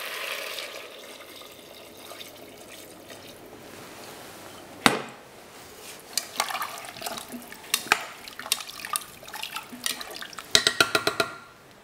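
Fish stock pouring from a saucepan into a WMF FusionTec pot, with liquid splashing over the potatoes for about the first second. Then comes a faint steady hiss, a sharp knock about five seconds in, and scattered metal clinks of a utensil stirring in the pot, ending in a quick run of clinks near the end.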